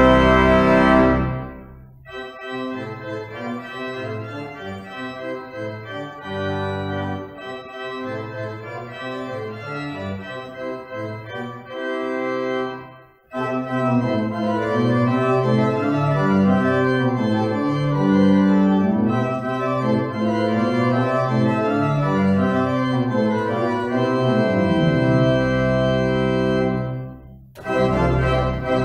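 Church organ playing. A loud held chord dies away about two seconds in and a quieter passage follows. There is a brief pause, then a fuller passage, and near the end a loud chord starts after another short break.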